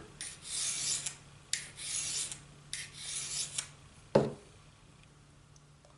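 Three slow strokes of a 10-inch metal file across a steel broadhead edge, each a rasping hiss about a second long, drawn with only light pressure. A short knock follows about four seconds in.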